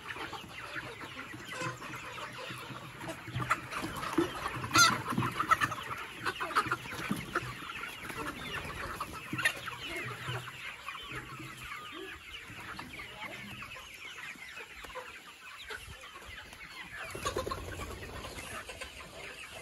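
A large flock of free-range local (Nepali indigenous) chickens clucking and calling all together, busiest in the first half and thinning out later, with a couple of sharp clicks mixed in.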